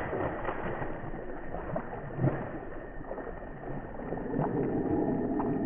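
A hooked largemouth bass thrashing and splashing at the water's surface close to the bank as it is brought in, in irregular splashes, the loudest at the very start and about two seconds in.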